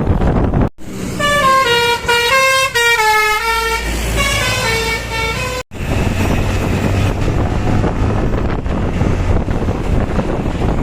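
Tourist bus telolet horn, a multi-tone air horn, playing a quick melody of stepping notes for about five seconds, starting and stopping abruptly. Wind rumble on the microphone and road noise before and after it.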